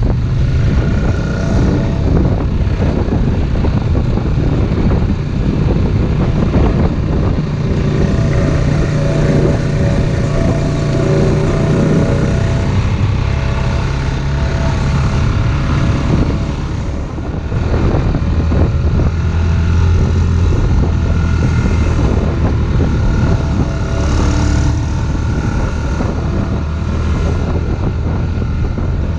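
Off-road vehicle engine running under way along a trail, its pitch shifting with the throttle and dipping briefly past the middle, with wind rumbling on the microphone.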